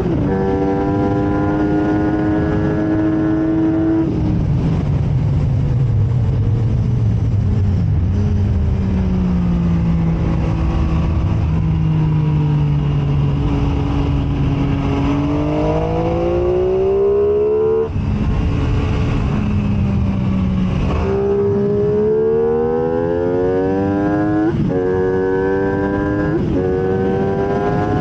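MV Agusta F3 sport bike's three-cylinder engine on a track lap: held high on the throttle, then shut off about four seconds in so the revs fall away through a corner, before it pulls hard again, rising in steps with several quick upshifts in the second half.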